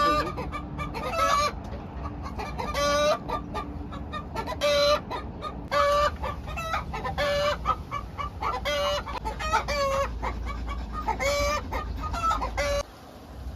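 Chickens calling loudly in a run of short, repeated clucks and cackles, roughly one a second, over a steady low rumble; it all cuts off abruptly near the end.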